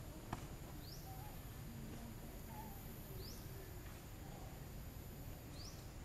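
A bird repeating a short, high, rising chirp three times, about two and a half seconds apart, over faint outdoor background rumble, with a single sharp click just after the start.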